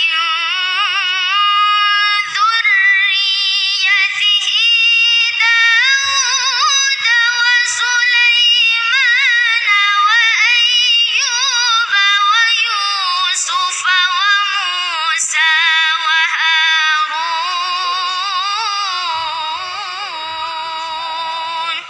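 A boy's high voice reciting the Qur'an in melodic tilawah style, one long ornamented phrase held on a single breath, its pitch wavering and turning throughout and easing off near the end.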